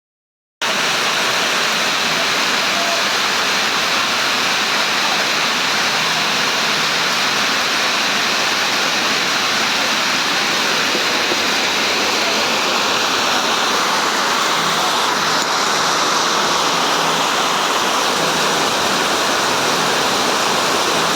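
Rain pouring down steadily, a dense, even hiss that starts abruptly just after the beginning.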